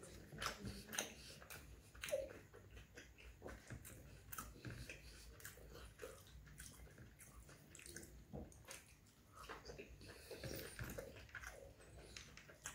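Close-up chewing and wet mouth sounds of roti with curry being eaten, with many short, soft clicks scattered throughout.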